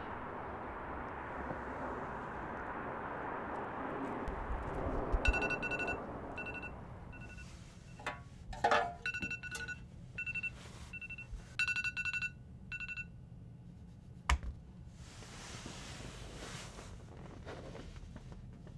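A mobile phone sounding a repeating electronic ringtone of short two-pitch beeps for several seconds before it stops, after a steady noisy hiss at the start. A single sharp knock follows shortly after the beeps end.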